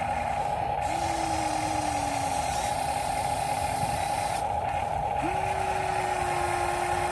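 Electric motors of radio-controlled model construction machines whining steadily, with one motor twice ramping up, holding its pitch for a second or more, then winding back down.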